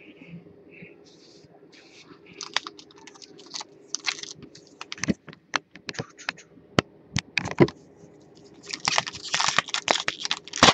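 Trading cards clicking and rustling as they are handled and set down on a table, then, from about nine seconds in, a dense crinkling as a foil card pack is torn open.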